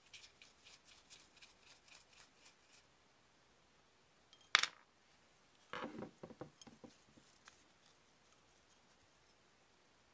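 Screwdriver working a rusted screw loose from cast iron bank parts, faint rapid scraping ticks for the first few seconds. A sharp metal click follows about halfway through, then a short clatter of small loose metal pieces and rust bits knocking onto the tabletop about six seconds in.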